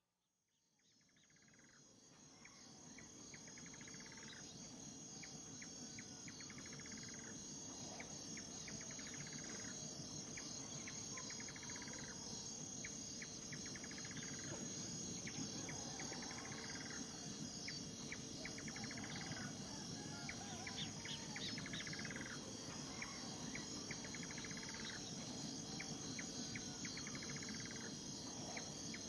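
Insects chirping: a steady high trill with a pulsed chirp about every two seconds, fading up from silence over the first few seconds.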